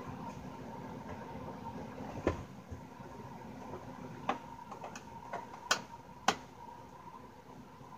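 Four sharp clicks and knocks, plus a few fainter ones, from a small amplifier cabinet being handled and worked on during disassembly. They come over a steady background hum, and the loudest click is about three-quarters of the way through.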